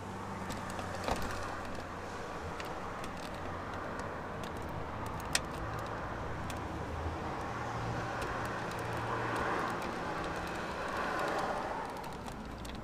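Light clicks and taps of plastic door-handle parts being handled and seated against a car's inner door panel, with one sharper click about five seconds in, over steady background noise that swells for a few seconds near the end.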